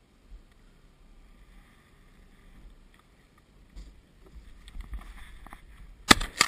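Shotgun fired from a small open boat about six seconds in: one very loud sharp blast followed by more sharp cracks within half a second. Before it, wind and water noise with a few handling knocks.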